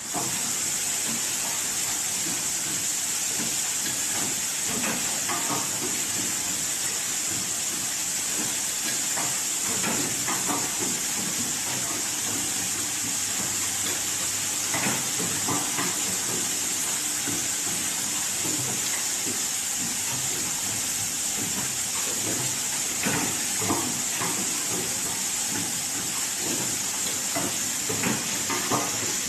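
Automatic hanger metal clip assembling machine running: a steady high hiss, with clusters of clicking and clacking from its mechanism every few seconds.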